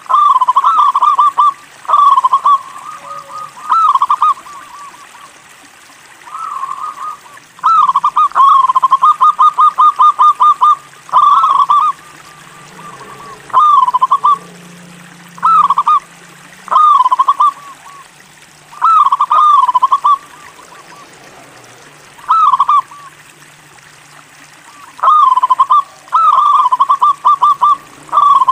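Zebra dove (perkutut) cooing in repeated phrases of short notes, with pauses of a second or two between phrases. About eight seconds in comes a longer run of quick, evenly spaced notes.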